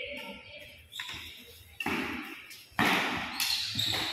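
Badminton rackets striking the shuttlecock in a fast doubles rally: several sharp hits, roughly a second apart, each ringing out in the large hall.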